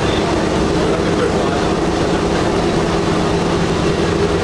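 Steady, loud drone of the B-17's Wright Cyclone radial engines heard from inside the fuselage, with the hiss of air through the airframe over it.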